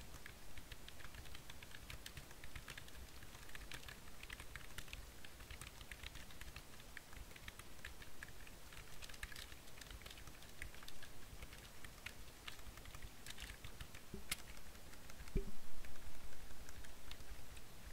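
Typing on a computer keyboard: a quick, irregular stream of key clicks. About 15 seconds in, louder low thumps join the clicks.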